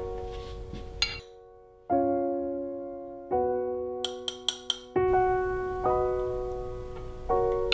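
Soft background piano music, slow held chords that fade after each new one. Four quick light ticks come about four seconds in.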